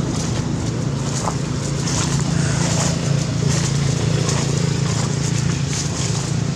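A steady low engine drone with wind noise on the microphone, and brief crackles of dry leaves underfoot.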